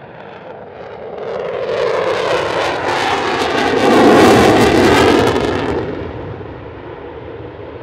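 F-16 Fighting Falcon's Pratt & Whitney F100 turbofan running in afterburner as the jet passes. The rush builds to its loudest about four seconds in, with a rippling, phasing quality, then eases off.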